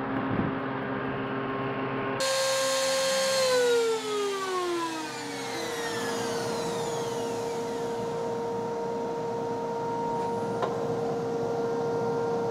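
Router table with a flush-trim bit and shop-vacuum dust extraction running together. About three and a half seconds in, one motor is switched off and its whine falls in pitch as it spins down, while the other keeps running steadily.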